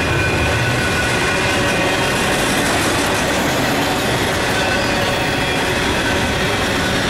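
Double-stack intermodal well cars rolling past: a steady, loud rumble of steel wheels on rail, with a faint high-pitched squeal over it.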